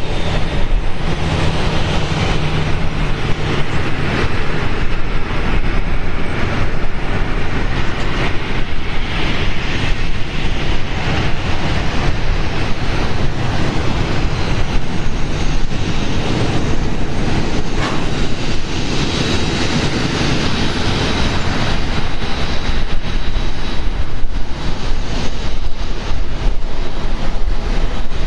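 Boeing 737-800's jet engines running, a steady loud roar with a faint high whine coming and going.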